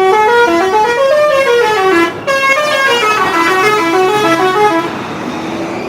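Bus 'telolet' horn playing a melody of quick stepped notes that climb and fall in runs. There is a short break about two seconds in, and the horn is softer near the end.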